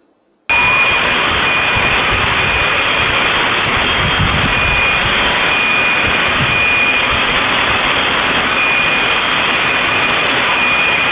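A loud, steady rushing noise starts abruptly about half a second in, with high, steady alarm-like tones sounding on and off on top of it.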